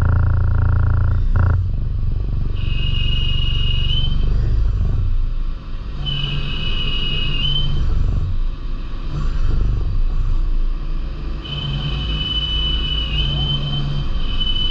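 DMG Mori NLX2500 CNC turn-mill lathe machining a small component: a steady low rumble with a low drone in the first second or so, and a high steady whine that comes and goes three times, the last time running for several seconds.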